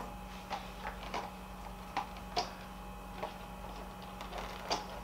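Scattered light clicks and taps from hands handling the RC monster truck's small metal body clips and plastic body, over a steady low room hum.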